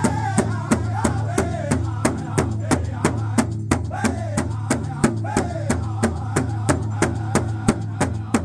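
Powwow drum group beating a large shared drum in unison, a steady beat of about three strokes a second, while singing together over it. The singing drops out briefly near the middle while the drumming carries on.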